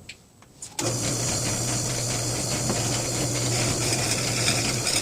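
Drill press starting abruptly about a second in and running steadily with a constant low hum and a hissing cut as the bit bores into a cherry wood pipe blank.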